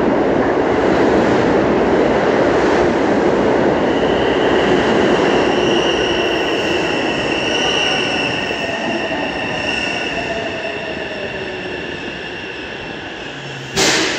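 Tsukuba Express electric train pulling into the underground platform: a loud rush of wheels and air with high steady whines. A lower motor tone slides down in pitch and the noise eases off as the train slows. A single sharp knock comes near the end.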